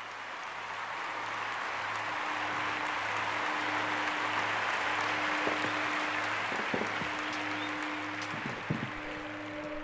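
Crowd applause swelling in and holding steady, under a low pulsing musical drone.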